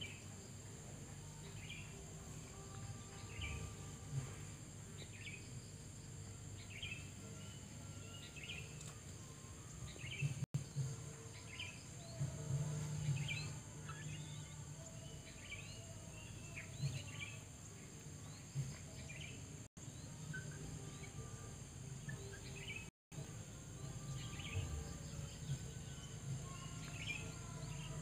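Outdoor ambience: small birds chirping in short calls about once a second, over a steady high insect drone and a low hum. The sound drops out for an instant a few times.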